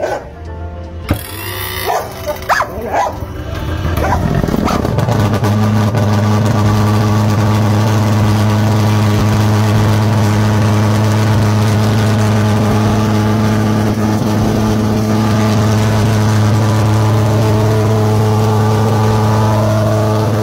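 Thermal fogger's pulse-jet engine starting on the ignition switch: a few seconds of irregular pops and sputters, then about five seconds in it catches and runs with a steady low buzz.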